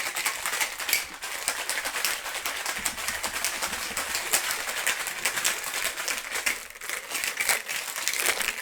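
Ice rattling hard in a cocktail shaker being shaken vigorously: a fast, continuous clatter that eases off near the end.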